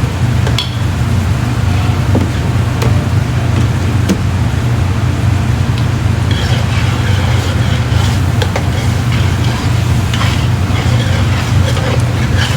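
A utensil stirring tomato paste into sautéing onions and tomato in a pan, clicking and scraping against the pan, with light sizzling that grows busier about halfway through. A steady low hum runs underneath.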